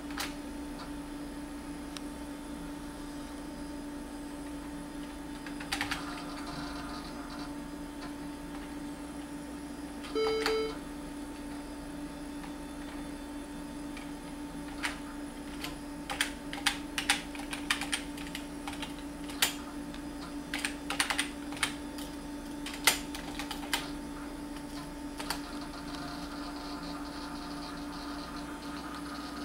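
Scattered keystrokes on a computer keyboard: a few near the start, a cluster around six seconds, then a denser run of taps in the second half, over a steady machine hum. About ten seconds in, the Lisp machine sounds one short beep, its error signal for an undefined key (Control-C).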